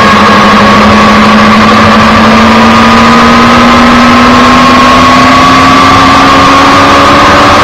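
Yamaha YZF-R6 inline-four sport bike engine, heard onboard, pulling steadily under load. Its pitch rises slowly and evenly over a loud rushing hiss.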